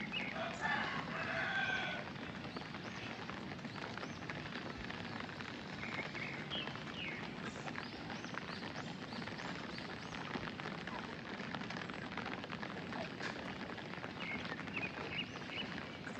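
Steady rain with a few short bird chirps breaking through it now and then.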